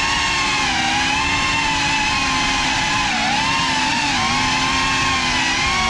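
GEPRC Cinelog35 6S cinewhoop's ducted motors and props whining in flight. The pitch wavers up and down with the throttle.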